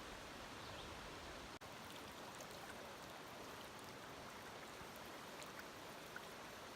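Faint, steady rush of a flowing stream, with a momentary dropout about a second and a half in.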